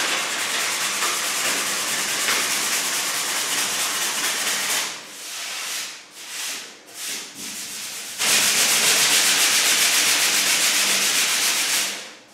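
Sanding block worked by hand over body filler on a steel car panel: steady sanding at first, then a few short separate strokes about halfway through, then a loud steady stretch that stops just before the end.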